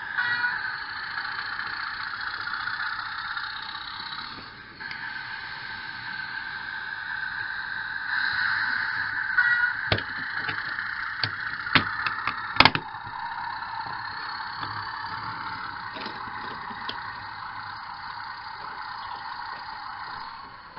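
Train Tech sound capsule playing a recording of a Class 31 diesel engine running, through a tiny speaker, so it sounds thin, with no bass. A few sharp plastic clicks and knocks come about halfway through as the coach body is clipped back on over it.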